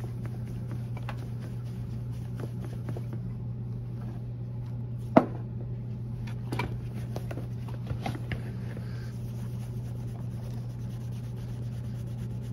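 Cotton rag rubbing hard on leather shoe uppers, scrubbing them with Saphir Renomat solvent to strip off the wax and surface colour, over a steady low hum. A sharp knock about five seconds in, then a few lighter taps.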